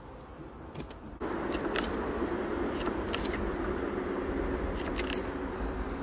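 Knife cutting up a silver carp for bait, with scattered short clicks and scrapes of the blade against the fish and board. A steady low hum comes in about a second in.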